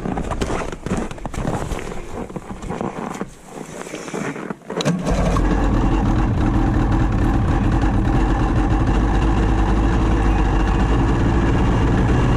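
Ski-Doo 800 E-TEC two-stroke twin snowmobile engine being rope-started off its primary clutch in extreme cold: a few seconds of irregular knocking and clatter, then the engine catches about five seconds in and runs steadily.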